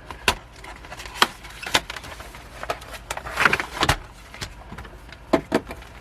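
Handling of album contents: a few sharp clicks and taps as items are picked up and set down, with a brief rustle of packaging about three and a half seconds in.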